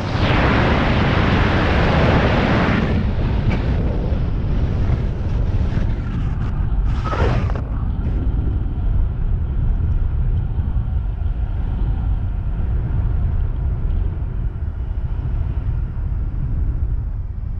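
Wind rushing and buffeting over a helmet-mounted 360 camera's microphone during a fast speed-riding descent, a steady low rumble. It is louder and hissier for the first three seconds while the skis run on the snow, with a brief burst of hiss about seven seconds in.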